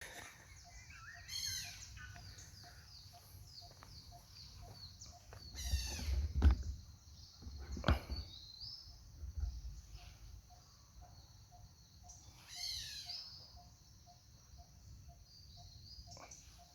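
Birds calling outdoors: quick series of high, falling chirps about a second in, around six seconds and again around thirteen seconds, over a faint even pulse of low notes about two a second. A few low knocks from handling near six and eight seconds.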